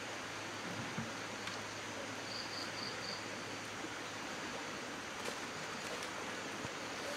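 Steady outdoor ambience, an even hiss, with a few light clicks and a short high chirp of four quick notes about two and a half seconds in.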